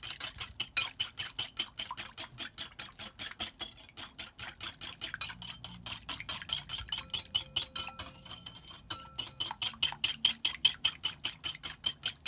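Wire balloon whisk beating an oil-and-vinegar dressing in a glass bowl: rapid, even clicking of the wires against the glass, about five strokes a second.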